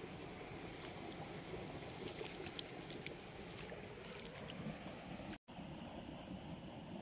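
Steady rushing of a fast-flowing stream, with a few faint light clicks in the middle. The sound cuts out for an instant about five seconds in.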